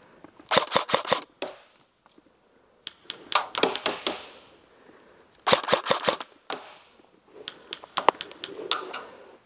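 Airsoft electric rifles firing in short rapid bursts, about four bursts of fast clicking shots with pauses between them.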